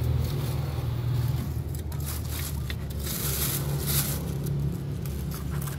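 Scraping and rustling of dry leaves and litter being picked out of a concrete drainage ditch by hand and put into a plastic bag, over a steady low rumble. A louder rustle comes about three to four seconds in.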